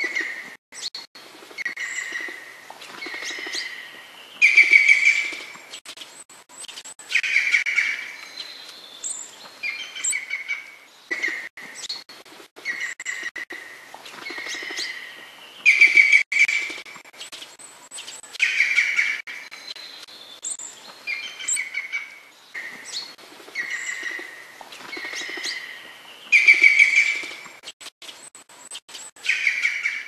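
Birdsong: a songbird singing short phrases again and again, every one to three seconds, with thin high notes between them.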